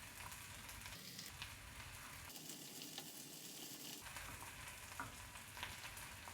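Chopped onion, garlic and spring onion frying in melted butter in a pan: a faint, steady sizzle with a few light clicks.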